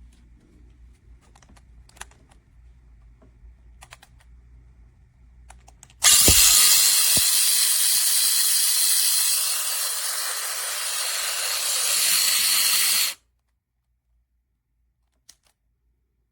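Conair 1600W compact travel hair dryer switched on and running for about seven seconds, a steady rush of air and fan hiss that dips slightly midway, then cut off suddenly. A few light handling clicks come before it starts.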